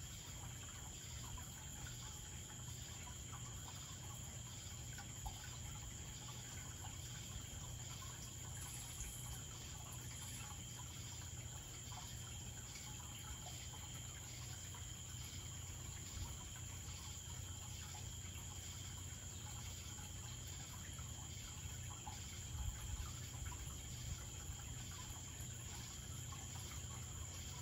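Faint steady aquarium background: a low hum with water trickling, and a thin steady high whine over it.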